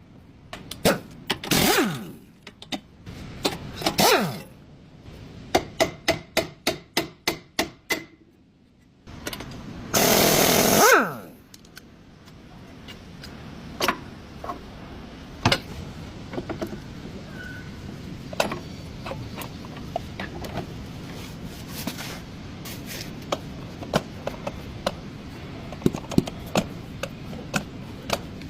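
Hand and power tools at work on a car's CV axle: scattered knocks, a quick run of about a dozen evenly spaced clicks, and a power tool running for about a second near the middle. After that, a steady low hum under occasional knocks.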